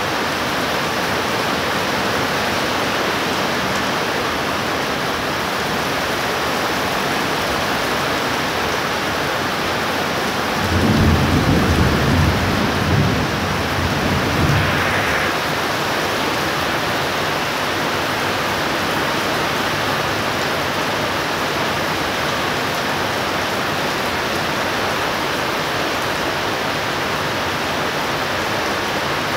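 Heavy tropical downpour, a steady loud rush of rain. About a third of the way in, a low rumble of thunder swells and rolls for around four seconds.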